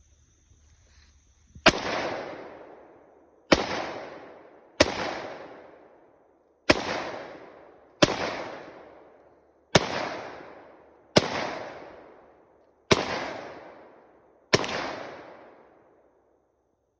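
Glock 31 Gen 4 pistol in .357 SIG fired nine times in slow, deliberate succession, a shot every one and a half to two seconds. Each sharp report is followed by a long echo dying away.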